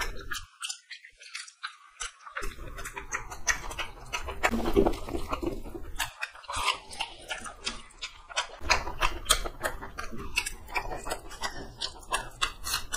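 Wet chewing and lip-smacking of people eating rice and chicken curry with their hands: a dense run of short smacking clicks, briefly quieter from about half a second to two seconds in.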